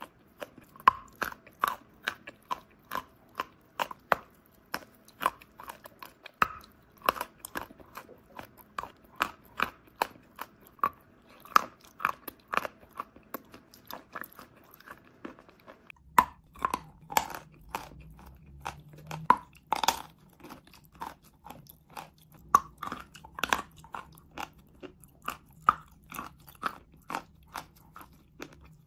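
Chalk being crunched and chewed close to the microphone: a steady run of sharp, dry crunches about two a second. A faint low hum comes in about halfway.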